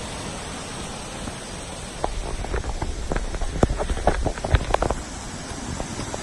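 Steady rushing of a multi-tier waterfall, with a flurry of short clicks and knocks from about two to five seconds in.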